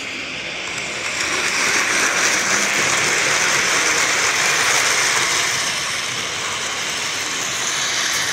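O-gauge three-rail model freight train rolling past close by, its metal wheels making a loud, steady rolling noise on the track. The noise swells about a second in and eases slightly near the end.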